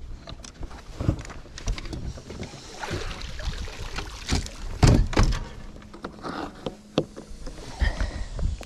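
Knocks and thuds of gear being handled on a bass boat's fiberglass front deck, the loudest about five seconds in.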